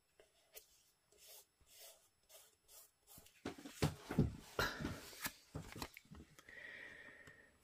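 Paper and craft materials being handled on a tabletop: faint scattered rustles and taps, turning louder and busier about halfway through.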